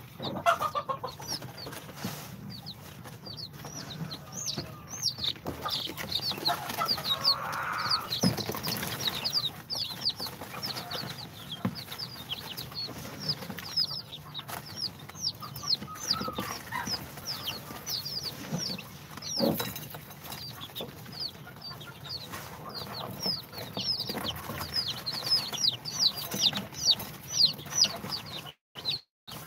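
A brood of day-old chicks (Brahma, bantam Cochin, Sultan and İspenç) peeping nonstop, many short high cheeps overlapping several times a second. The sound cuts out twice, briefly, near the end.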